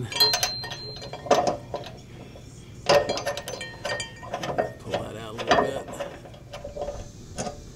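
Steel weight distribution hitch bracket hardware clinking and clanking as parts are slid into the frame brackets by hand: irregular metal knocks and clicks, some with a brief metallic ring.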